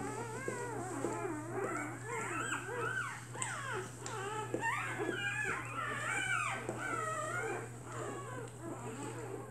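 A litter of newborn puppies whimpering and squeaking, many high, wavering cries overlapping one another.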